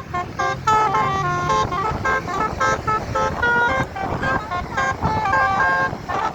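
Multi-tone 'telolet' musical bus horn of the Basuri type playing a quick melody of short, changing notes, several horn tones sounding together.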